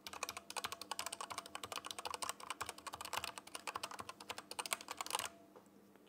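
Rapid typing on a budget MageGee 60% mechanical keyboard with red linear switches, a quick run of key clacks that stops about five seconds in. Each press carries a metallic ringing, a flaw of this cheap board.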